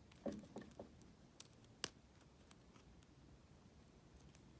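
Lock pick and tension wrench working in a Yale 110/40 brass padlock: faint scraping near the start, then a few sharp metallic clicks, the sharpest about two seconds in.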